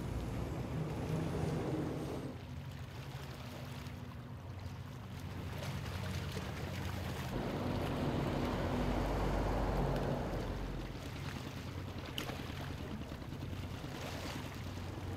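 Boat engines droning low and steady over the wash of water, with wind on the microphone; the mix changes abruptly a few times.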